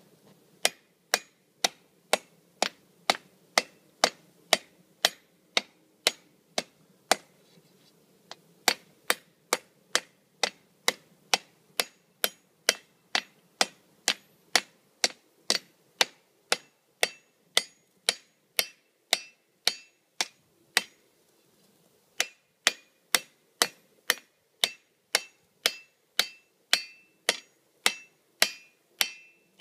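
Hand hammer striking a hot iron bar on an anvil to draw out its end: steady ringing blows about two a second, broken by two short pauses.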